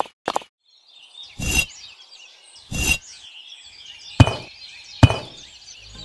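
Birds chirping and twittering in the background, with four sharp knocks spaced about a second apart.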